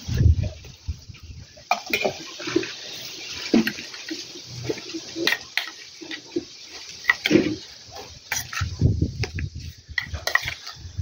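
A metal spoon stirring and scraping a wet mix of chopped raw chicken giblets and onion in a stainless steel bowl, with scattered clinks of spoon on bowl. There are dull low thuds near the start and about nine seconds in.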